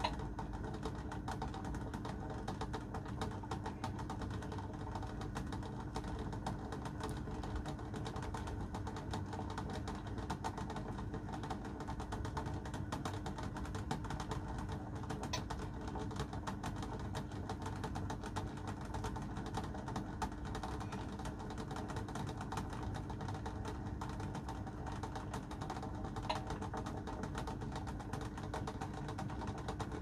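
Water at a rolling boil in a steel pot, a steady bubbling and rattling, with a faint steady hum underneath.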